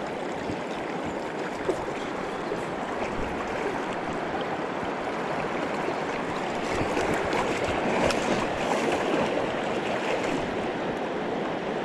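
Fast-flowing river water rushing steadily, a little louder about eight seconds in.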